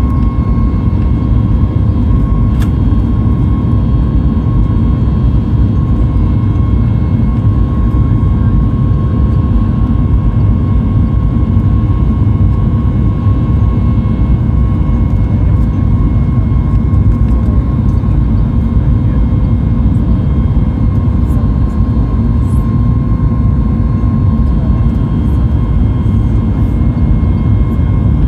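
Boeing 737 MAX 8's CFM LEAP-1B turbofan engines at climb thrust just after takeoff, heard inside the cabin: a loud, steady low rumble with a constant whine above it.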